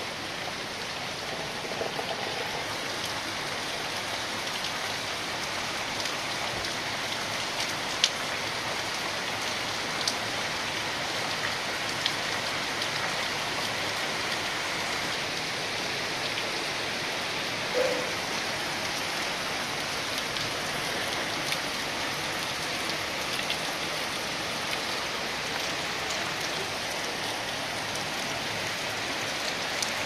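Steady rain falling on wet ground, an even hiss with a few sharper drop ticks now and then.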